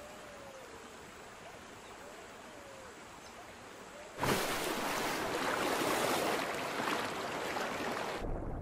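Quiet riverside background with a few faint calls. About four seconds in comes a sudden loud splash as a jaguar plunges into the river, then several seconds of churning, splashing water.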